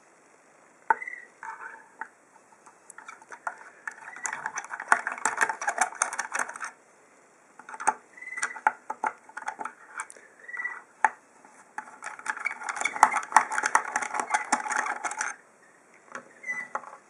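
A screwdriver turns and loosens the screws in the hard plastic case back of a Simpson 260 Series 7 multimeter. It makes three long stretches of rapid clicking and scraping, with short pauses and a few squeaks between screws.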